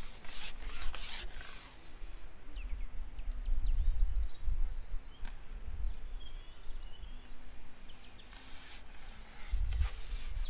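Outdoor ambience with a low rumble, loud rustling or rubbing noises near the start and again near the end, and a few short bird chirps a few seconds in.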